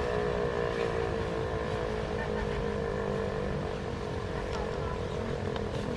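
Federal Signal Eclipse-8 outdoor warning siren winding down after its alert blast, its tone slowly falling in pitch and fading. Wind rumbles on the microphone underneath.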